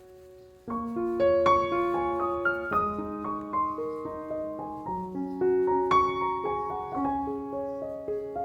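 Background piano music, a gentle melody. A held note fades out, and a new phrase starts just under a second in.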